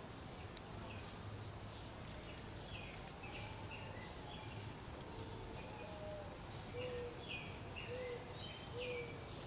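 Backyard songbirds chirping: a run of short, high chirps, many dropping in pitch at the end, with a few short lower notes about a second apart in the second half.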